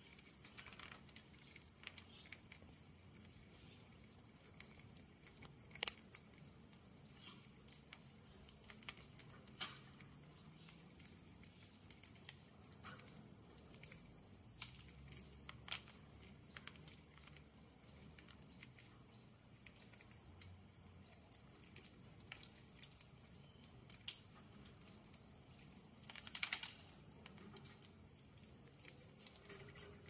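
Budgerigars pecking at a millet spray and cracking the seeds: a faint, irregular run of small sharp clicks, with a brief cluster near the end.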